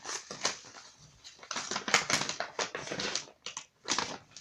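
Cardboard box and paper packaging being handled, rustling and crinkling in quick scratchy clusters, busiest in the middle.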